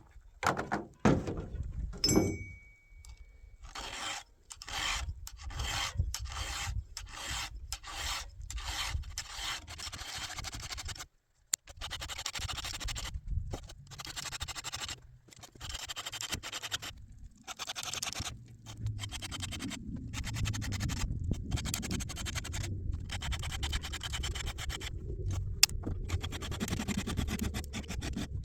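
A round chainsaw file being pushed across the teeth of a rusty, chipped saw chain in repeated rasping strokes, about two a second, coming faster and more continuous in the second half.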